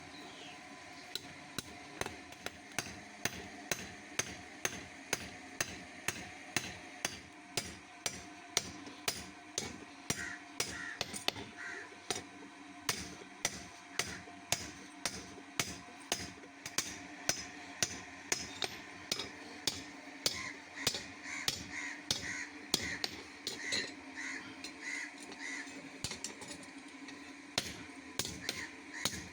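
Steady hammer blows on metal, about two a second, while a rod is forged into tongs. Two bursts of crow cawing sound over them, one in the middle and a longer one near the end.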